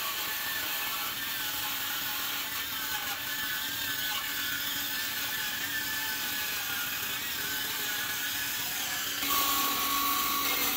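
Cordless Milwaukee M18 Fuel metal-cutting circular saw running steadily through the flange of a steel truck frame rail. Near the end it gets louder, with a steady whine.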